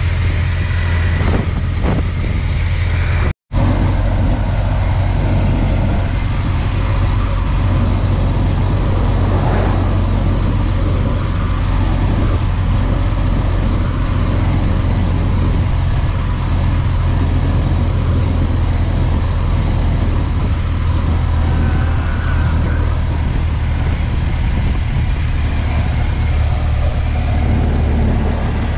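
A Ford Model T's four-cylinder engine running steadily at road speed, mixed with wind and tyre noise in the open cab. The sound cuts out completely for an instant about three seconds in.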